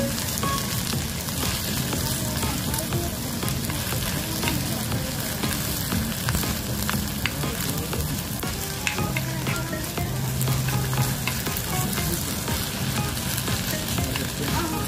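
Stone-pot bibimbap sizzling steadily in its hot stone bowl while a metal spoon stirs and scrapes the rice, with scattered small clicks of the spoon against the stone. The rice is pressed to the hot bowl to crisp into a crust.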